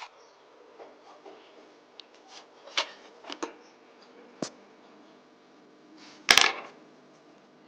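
Watch parts and small metal tools handled on a workbench: a few scattered light clicks and taps, then a sharp, louder double click about six seconds in.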